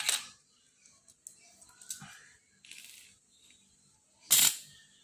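Hands working a fiber optic drop cable: scattered short rustles, scrapes and clicks as a fiber core is pulled out of its jacket, the loudest about four seconds in.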